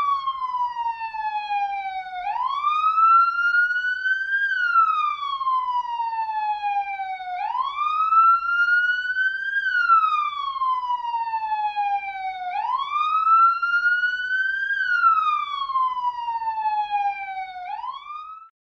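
Police siren wailing in a slow cycle: each sweep jumps up quickly, climbs more slowly to a peak, then falls gradually, repeating about every five seconds. It cuts off suddenly near the end.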